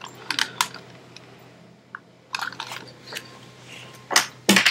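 Hard plastic parts of a Masterpiece Grimlock Transformers figure clicking and creaking as they are worked apart by hand at a stiff spot that sticks. The clicks are scattered, with the loudest two near the end.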